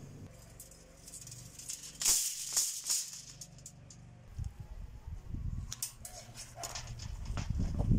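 Steel wire rattling and scraping as it is handled, with a loud metallic rattle about two seconds in, then scattered clicks and low rustling as strands of a rusty wire coil are pulled and moved.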